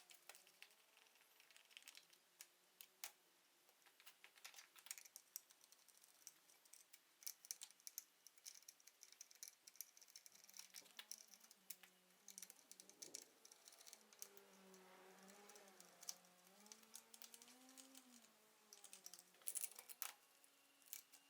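Near silence with faint, scattered clicks and taps, and a faint wavering hum through the middle.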